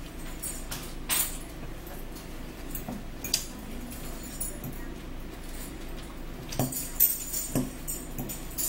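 Metal fork clinking and scraping against a salad bowl while eating, in scattered short clinks with a cluster of them near the end.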